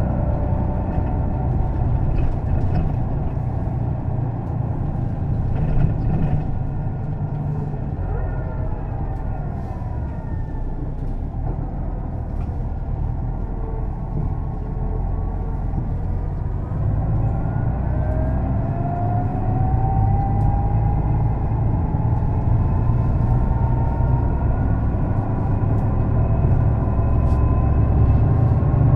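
Setra S 315 NF city bus driving, heard on board: a steady low engine rumble with a whine from its ZF gearbox that falls in pitch about a third of the way in, then climbs slowly through the second half. Faint rattles and clicks come and go over it.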